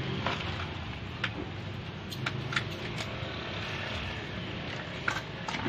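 Scattered light clicks and knocks of plastic containers being handled, over a steady low background hum.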